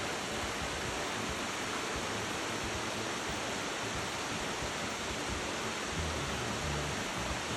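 Steady rushing noise, with some low rumbling about six seconds in.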